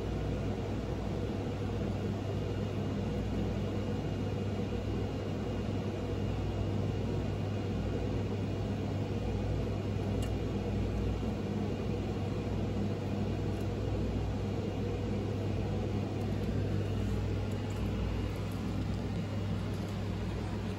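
A steady low hum with a constant noise floor, unchanging throughout, with a few faint light ticks.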